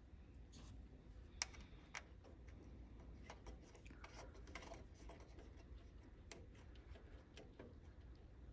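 Faint small clicks and light rustling of hands handling and fitting wires at the back of a car speedometer, with one sharper click about a second and a half in.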